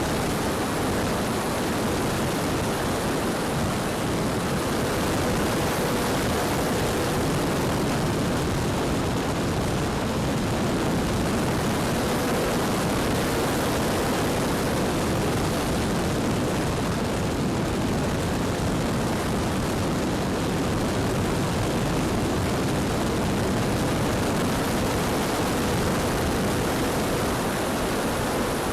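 Steady wind noise on the microphone, with the faint hum of an E-flite Valiant electric RC airplane's motor and propeller in flight, fading in and out.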